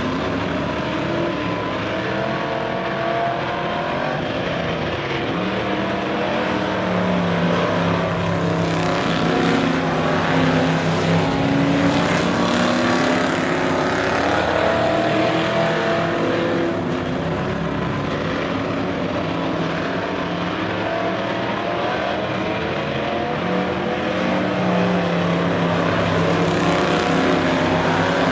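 A field of short-track stock cars racing, several engines running at once with their pitch rising and falling as they come off and back onto the throttle.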